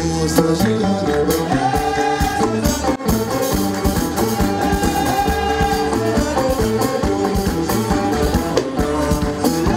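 Live Gnawa fusion music: a concert flute playing a melody over a steady clatter of metal castanets (qraqeb) and a deep bass line.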